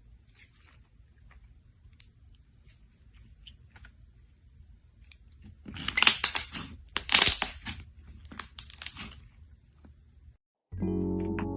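Dry crackling and tearing sounds: faint, scattered crackles at first, then a louder, dense run of crackling for about three and a half seconds. Music starts near the end.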